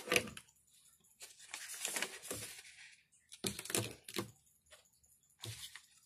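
Light handling noises in several short bursts: rustling and small clicks and knocks from markers and paper being moved on a desk.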